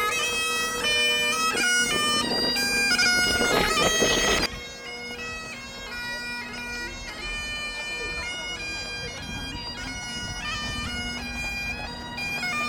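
Bagpipes playing a melody over steady drones. Loud for the first four and a half seconds, then quieter.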